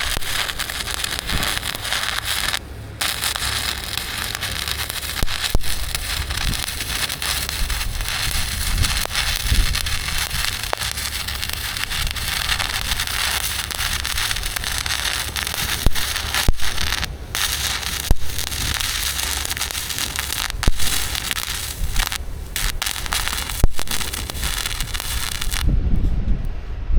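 Welding arc crackling steadily, with a few brief pauses between beads, stopping near the end.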